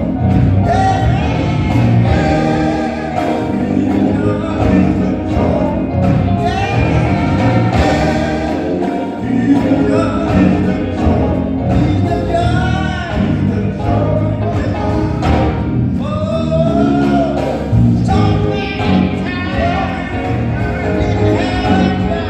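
Gospel singing with musical accompaniment, performed live; the sung notes are held and waver in pitch.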